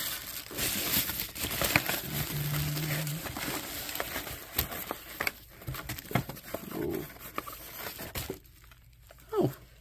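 Plastic mailer, cardboard box and bubble wrap crinkling and rustling as they are handled, with scattered light clicks; the rustling stops a little after eight seconds in.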